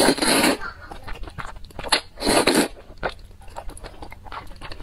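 Noodles slurped into the mouth twice, about two seconds apart, each slurp a long hiss, followed by wet chewing with small clicks and smacks.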